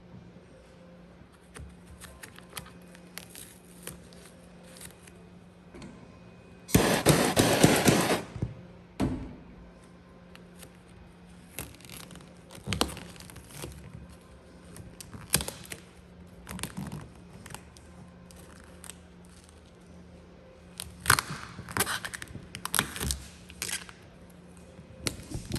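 Hands working gloss black vinyl wrap film: scattered taps, crinkles and scrapes, with a loud, noisy rip of film about seven seconds in that lasts about a second and a half, and a run of short sharp rips and crackles near the end.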